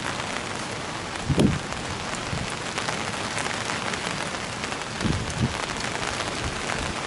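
Heavy rain falling steadily in a storm, with a few louder low thumps about a second and a half in and again twice around five seconds in.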